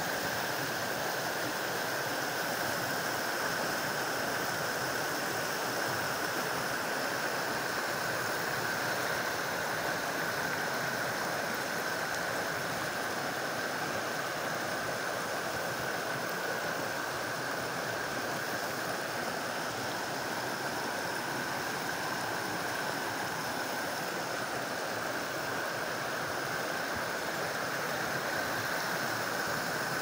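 Mountain creek rushing over small rapids: a steady, even noise of running water, with a steady high tone underneath.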